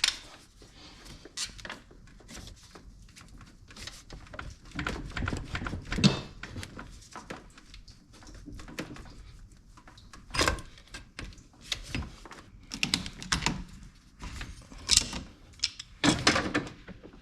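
Hand tools and parts knocking, clicking and scraping at irregular moments while stiff radiator hoses are pried off their fittings. A few sharper knocks stand out, about six and ten seconds in and near the end.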